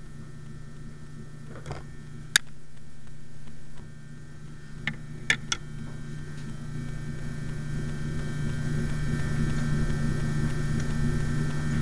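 Steady low electrical hum, growing louder in the second half, with a few sharp clicks from toy figure pieces being handled and fitted: a loud one about two seconds in and three in quick succession around five seconds in.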